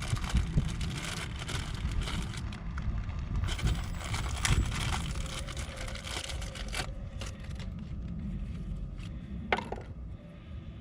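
Irregular clicks, taps and scraping from hands handling parts and tools close to the microphone, over a steady low rumble.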